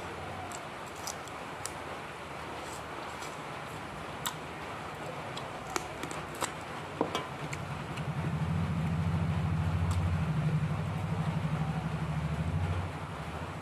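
Soft mouth clicks and smacks of someone chewing food eaten by hand, over a steady low hum. About eight seconds in, a low pulsing motor rumble swells to become the loudest sound, then drops away shortly before the end.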